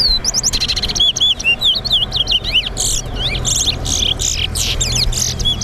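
Two caged towa-towas (large-billed seed finches) singing against each other: fast, overlapping runs of clear whistled notes, many rising and falling in quick arches.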